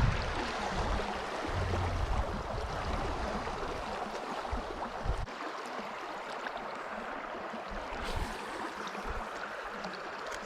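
River water flowing steadily, an even rushing noise, with a low rumble on the microphone during the first few seconds.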